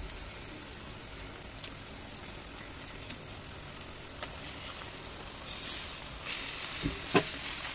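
Raw prawns going into a clay pot of hot masala: a frying sizzle starts about five and a half seconds in and grows stronger, with a couple of soft knocks near the end. Before that only a faint hiss and a few small clicks.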